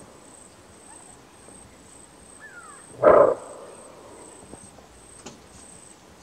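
Greater kudu cow giving a single short, loud bark about three seconds in: the species' alarm call.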